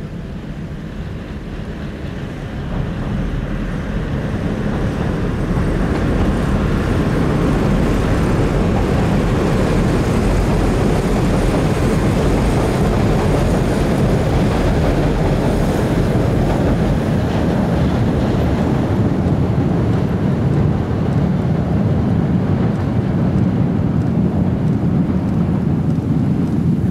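CDC diesel railcar commuter train rumbling across a railway bridge overhead. The rumble builds over the first several seconds, then stays loud and steady.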